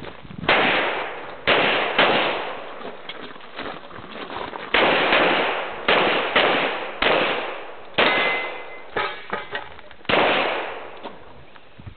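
Handgun shots fired one at a time during a practical-shooting course of fire: about ten sharp cracks, each with a long echoing tail, spaced unevenly with a pause of about three seconds after the first three. One shot is followed by a brief ringing tone.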